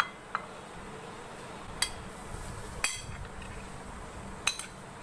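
Metal spoon clinking and scraping against a ceramic plate while potato stuffing is spooned off it, four sharp clinks spread through, over a faint steady hum.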